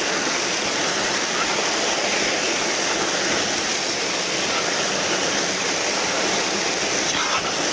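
Water pouring over a small concrete weir into the plunge pool below, a steady, even rush.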